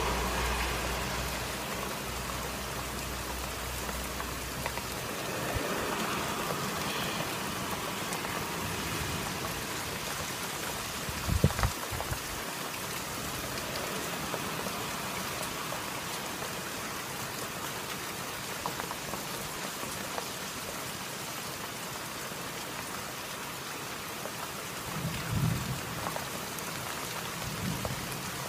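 Rain falling steadily in a thunderstorm, an even hiss throughout, with two brief low thumps about eleven and twenty-five seconds in. A low engine hum fades out in the first few seconds.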